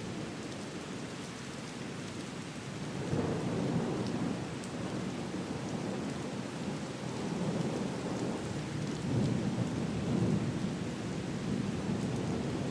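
Steady rain with low rolling thunder that swells several times, about three seconds in and again later on.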